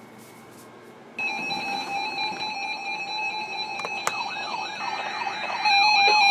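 Emergency alert tones: after a second of faint radio hiss, several steady electronic alert tones start at once, then warbling siren-like alarm tones join in and everything gets louder near the end. Together they signal that a new weather warning is coming in.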